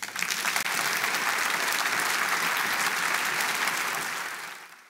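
Audience applauding, a dense clapping that fades out near the end.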